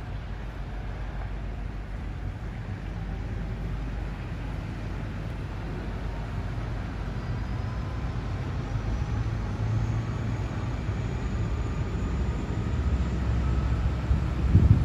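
Steady low drone of a Thames Clipper catamaran river bus running past at cruising speed. It grows a little louder toward the end, with a faint whine slowly rising in pitch.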